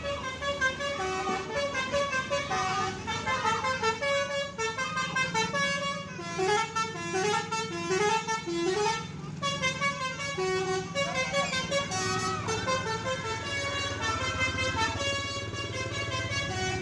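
Bus telolet horn, a multi-tone musical air horn, playing a fast run of stepped notes in repeating melodic phrases over the bus's running engine.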